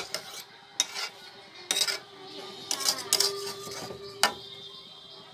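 Metal spatula scraping and clinking against a metal wok as cooked rice is stirred and turned: a run of irregular sharp scrapes and knocks, busiest around the middle, over a faint steady hum.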